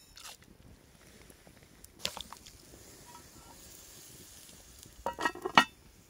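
Cast-iron lid clanking several times onto a cast-iron Dutch oven about five seconds in, each knock ringing with a metallic tone. A sharp click comes earlier, about two seconds in.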